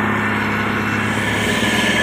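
Diesel engine of heavy road-construction machinery running steadily, with the engine note shifting a little past halfway.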